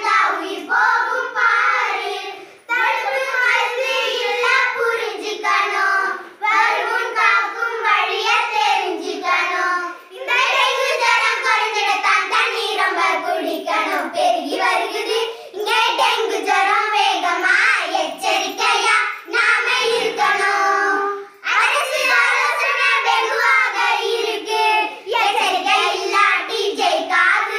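A group of young girls singing a song together in Tamil, unaccompanied, in phrases with short breaks between lines.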